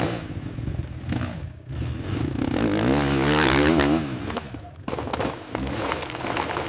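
Dirt bike engine revving with a pitch that wavers up and down, loudest past the middle, among scattered thuds and scraping.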